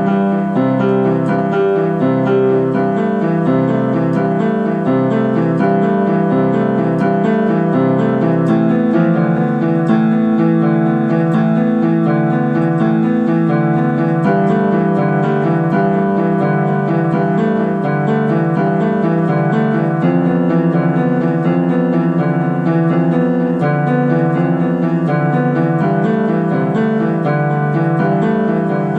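Yamaha electronic keyboard played freestyle on the white keys only: a steady flow of overlapping held chords and notes at an even level.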